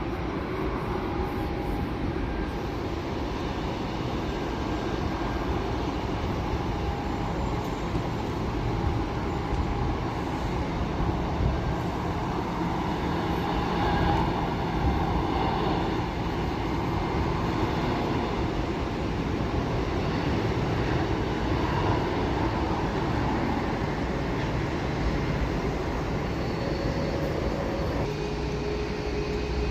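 Jet airliner engines rumbling steadily, with a faint whine of steady tones over the rumble, swelling a little midway.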